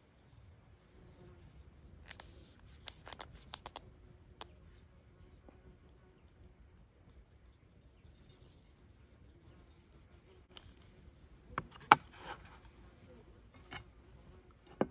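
Sharp clicks and taps of a small wooden spice shaker being shaken over a plate of food, in a quick cluster about two seconds in and another run from about ten seconds, the loudest tap about twelve seconds in. A fork clinks on the ceramic plate at the very end.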